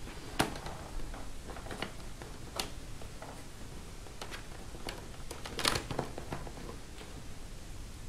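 A small Phillips screwdriver driving tiny screws into the plastic screen frame of a laptop, with scattered clicks and handling noises. The loudest click comes a little before six seconds in.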